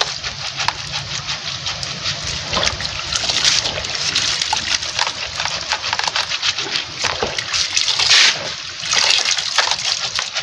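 Soaked beans being washed and rubbed by hand in water: continuous irregular sloshing and splashing as the hands work the beans to loosen and float off their skins.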